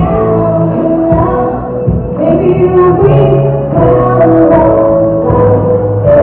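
A singer and live band performing a slow pop song, with long held sung notes over the band.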